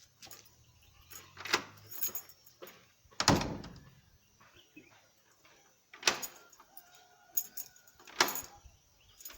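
Sharp metallic clacks and knocks from a mortice lock on a wooden door being handled. There are four distinct knocks with lighter clicks between them, the loudest about three seconds in.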